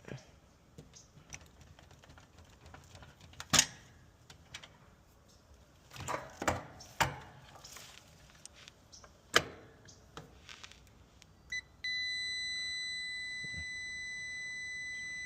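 Scattered clicks and taps of meter probes and tools being handled, then about twelve seconds in a digital multimeter's continuity tester chirps once and then beeps steadily at a high pitch, the signal of a closed, near-zero-resistance path.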